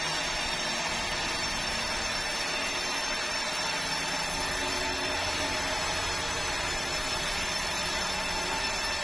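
Sawmill machinery running steadily with a constant mechanical drone and no breaks.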